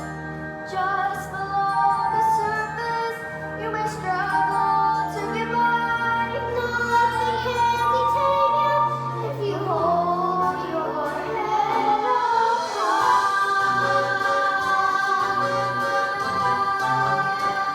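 Young voices singing a show tune over instrumental accompaniment. The song settles into a long held note near the end.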